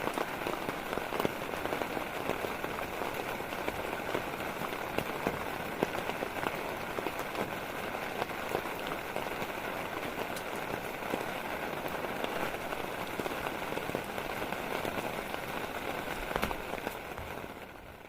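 Heavy rain falling steadily, with many separate drops ticking on a surface. It fades out near the end.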